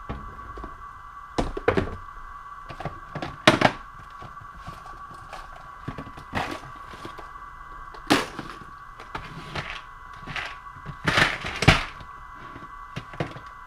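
Clear plastic tackle boxes clacking and knocking as they are pulled from cabinet shelves and handled, a string of irregular knocks, the sharpest about a third of the way in and a cluster near the end.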